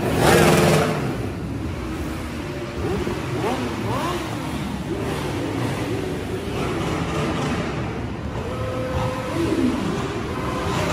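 A vehicle engine revs loudly for about the first second, then engines keep running at a lower, steady level.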